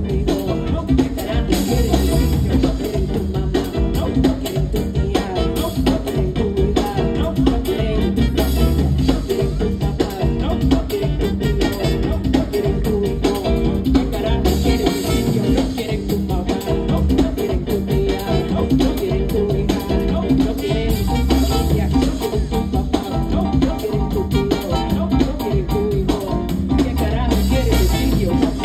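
Live Latin band playing an uptempo groove on drum kit, hand percussion and electric bass.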